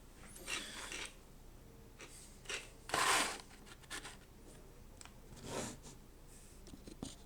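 Faint scattered handling noises: rustles and light knocks of small objects being moved about, with one louder rustle about three seconds in.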